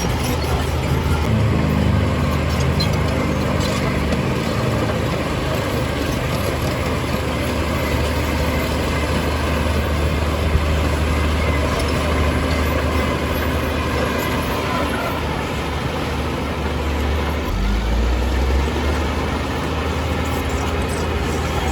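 Heavy diesel engine of earthmoving equipment running steadily, its pitch rising briefly about a second in and again near the end.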